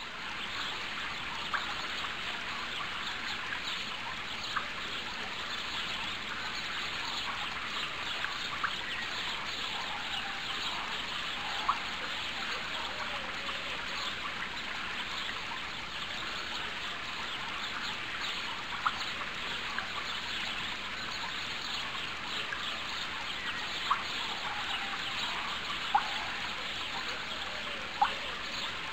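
Steady trickling of water, with short bird chirps and calls scattered irregularly over it.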